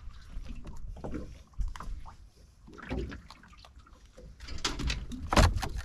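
Sounds aboard a small fishing boat at sea: low rumble with irregular knocks and thumps, and one loud thump near the end.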